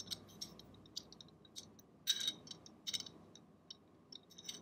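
Light metallic clicks and scrapes of steel pistol parts handled by hand: the barrel and locking block of a PHP MV-9 pistol being worked in its slide, with a denser run of clicks about two seconds in.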